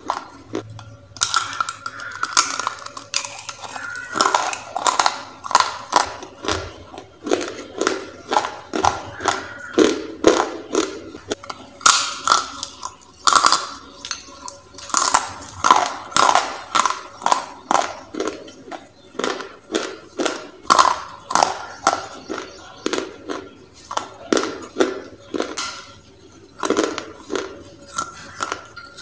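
Baked clay crunched between the teeth: repeated crisp bites and chewing crunches, about one a second throughout.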